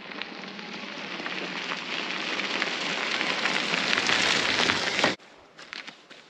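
Fat tyres of a Cyrusher Kommoda electric fat-bike crunching over a gravel forest track, a crackling noise that grows louder as the bike rides up and passes close by, then cuts off suddenly about five seconds in.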